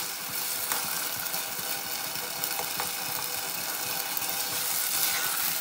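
Pulao rice frying with spices in a nonstick saucepan: a steady sizzle, with a few light scrapes and taps of a metal spoon stirring it.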